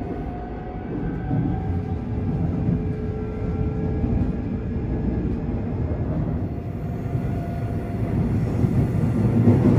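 Seoul Line 4 subway train heard from inside the car as it pulls away: a faint whine from the traction motors rising in pitch over a steady rumble of wheels on rail. The rumble grows louder near the end as the train gathers speed in the tunnel.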